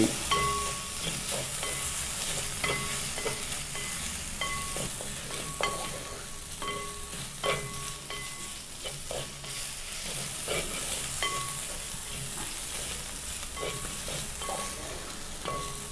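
Grated coconut, shallots and tomato sautéing in hot oil in a pan with turmeric powder just stirred in, sizzling steadily. A spoon stirs and scrapes the mixture, knocking against the pan every second or so, and the pan gives a brief ringing note with many of the knocks.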